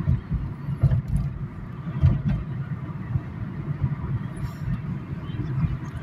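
Car interior road noise while driving: a steady low rumble of engine and tyres on the pavement, with a couple of short thumps about one and two seconds in as the car rides over the cracked road.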